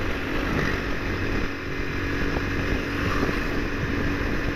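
Bajaj Pulsar 180's single-cylinder engine running steadily as the motorcycle cruises along a highway, with wind noise on the microphone.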